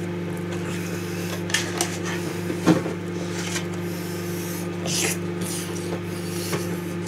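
A fork clinking and scraping against dishes as food is stirred and picked up, with a few light knocks scattered through, over a steady low hum.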